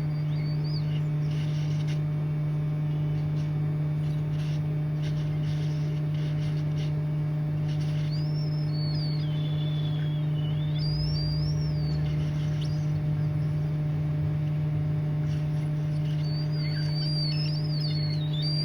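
Steady low electrical hum from the repair bench while the USB jack is being heated off the board. Several short, high chirping bird calls sound faintly over it about halfway through and again near the end.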